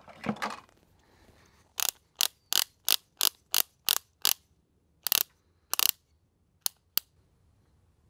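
Click-type torque wrench being set: a short rustle as it is handled, then a run of eight sharp clicks about three a second, followed by four more spaced-out clicks.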